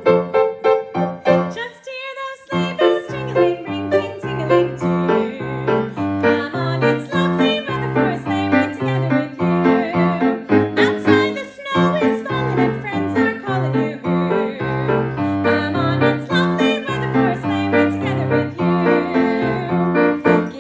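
Piano-led music: a bouncing accompaniment of low bass notes alternating with chords, under a melody line.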